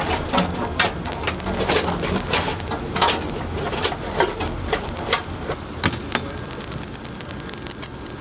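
Irregular metallic clicks and clanks of large cartridges being handled and seated in a deck gun's ammunition feed, over a steady low rumble.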